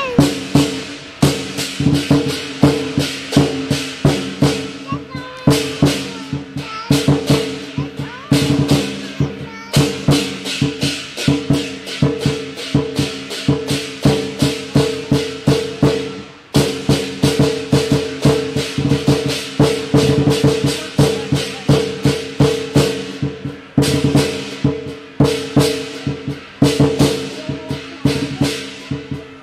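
Chinese lion dance percussion: a drum, clashing cymbals and a gong beating out a fast, steady rhythm of several strikes a second, with the cymbals and gong ringing on between strikes. There is one short break in the beat a little past the middle.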